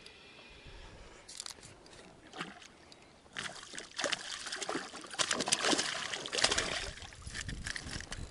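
A hooked small pike thrashing and splashing at the water's surface as it is reeled in on a spoon lure. The splashing is irregular, begins about three seconds in and is heaviest just past the middle.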